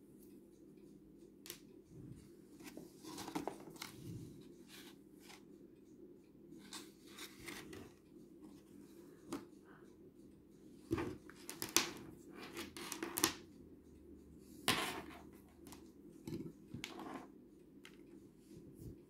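Packaging being handled and opened by hand: scattered clicks, rustling and crinkling, with a few louder crackles about eleven to thirteen seconds in and again near fifteen seconds.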